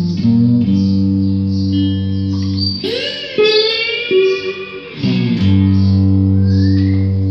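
1994 Korean-made Squier Stratocaster electric guitar played with a slide: held low notes, then a stretch of sliding, wavering high notes through the middle, then settling back onto long sustained low notes.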